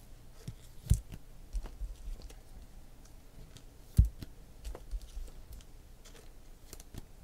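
Trading cards being handled and slipped into plastic sleeves: light clicks and rustles, with two sharper taps about a second in and about four seconds in.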